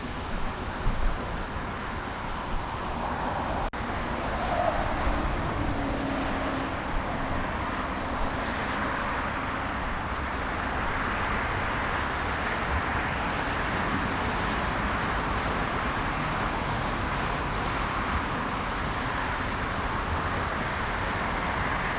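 Steady rushing roar of a jet airliner's engines, growing louder about four seconds in and holding. Gusty wind buffets the microphone underneath.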